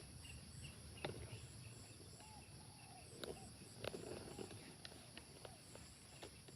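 Insects chirping and buzzing in a steady high-pitched chorus, with a regular pulsing chirp, faint scattered clicks and a few short calls.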